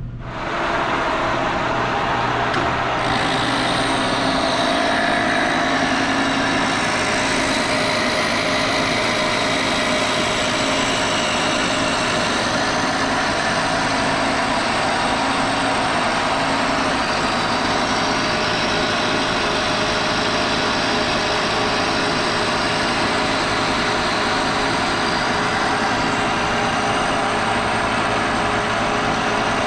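Kearney & Trecker knee mill face-milling a cast iron straight edge: steady cutting noise from the face mill taking a pass across the casting, with the machine's spindle and table feed running.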